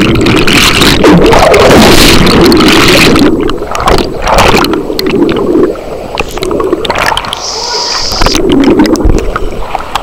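Rushing, bubbling water from a pool's artificial rapids, heard with the microphone underwater. It is loud and churning for about the first three seconds, then quieter with uneven surges and splashes.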